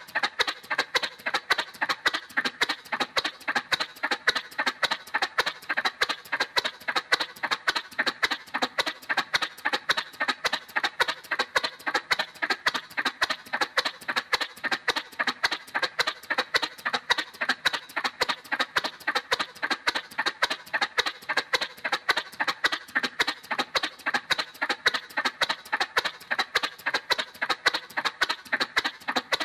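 Cartoon motorcycle sound effect: a stylised putt-putt engine pulsing evenly and quickly, about four to five pulses a second, thin and without any deep rumble.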